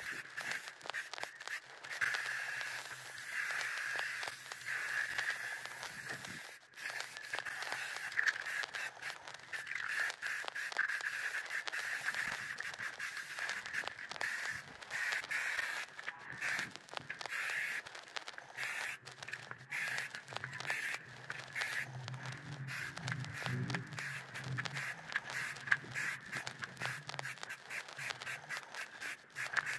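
Aerosol spray paint can hissing in short, repeated bursts as matte black paint is sprayed onto a motorcycle's spoked wheel rim, laying down a thin first coat. A steady high-pitched tone runs underneath throughout.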